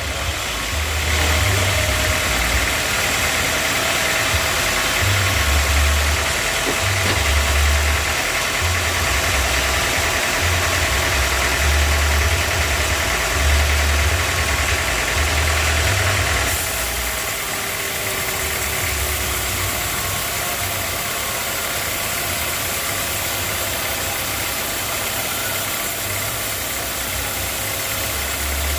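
Sawmill machinery running steadily with an engine note. It is louder and hissier from about a second in until about sixteen seconds in, then settles to a quieter, even run.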